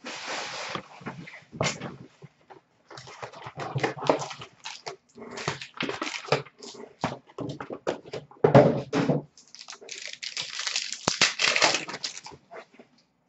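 A cardboard hobby box of trading cards being torn open and its packs handled, then a pack's plastic wrapper ripped and crinkled toward the end. The tearing and rustling come in irregular bursts.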